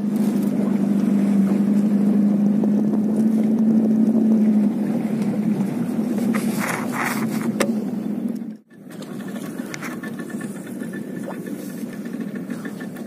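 Fishing boat's engine running with a steady low hum, loudest for the first few seconds and a little quieter after. It cuts out suddenly about two-thirds of the way through and comes back noticeably quieter.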